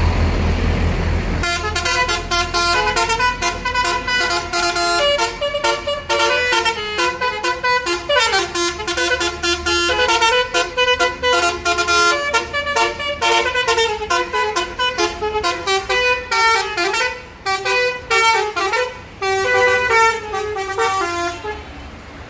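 Bus's roof-mounted basuri musical air horn playing a fast tune of short notes, with a few sliding notes in the middle. It starts about a second and a half in over the low rumble of the bus engine and stops shortly before the end.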